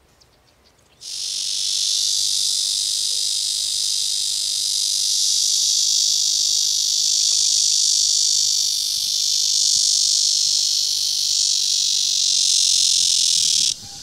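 Cicadas singing: a dense, steady, high-pitched buzz that starts about a second in and cuts off abruptly just before the end.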